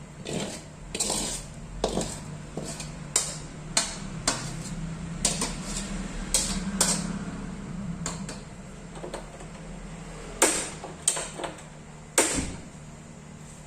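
A cooking utensil clinking and scraping against a pan as the sautéed spice paste is added to the pot, in irregular knocks with a few louder ones near the end, over a low steady hum.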